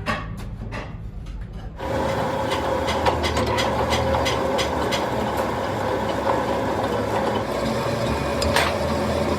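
A machine running steadily with a constant tone and a low rumble, starting abruptly about two seconds in, with scattered metallic clicks and knocks over it.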